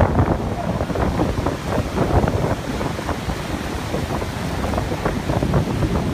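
Wind buffeting the microphone over ocean surf breaking on the shore; a gusty, uneven rumble of noise.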